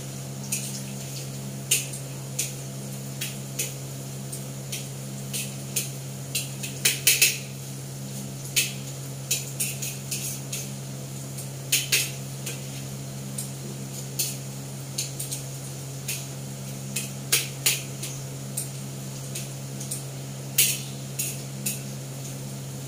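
Metal tongs clinking and scraping against a wok while potato omelette is turned in it: irregular sharp clanks, with a quick cluster about seven seconds in, over a steady low hum.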